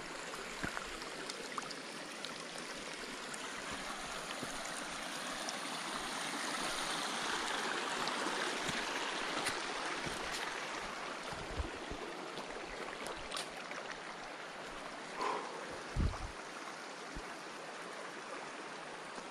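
Steady rush of a small mountain stream, swelling somewhat in the middle, with a few soft thumps, the loudest late on.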